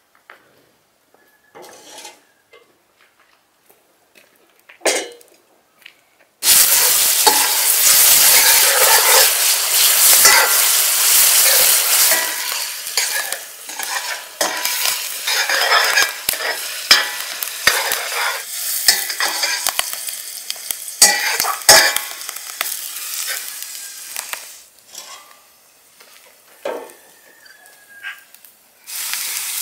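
Goose meat frying in hot fat in a pan over a wood fire. A loud sizzle starts suddenly about six seconds in and slowly dies down over the next fifteen seconds or so. Scattered knocks and scrapes of a utensil on the pan run through it, and the sizzle surges again near the end.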